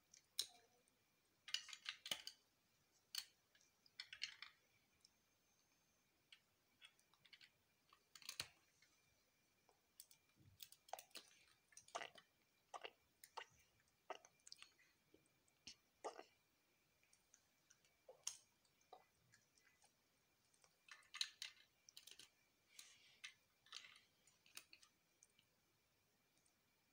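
Plastic Lego bricks being handled and pressed together: irregular sharp clicks, with a few short bursts of rattling as pieces are picked through.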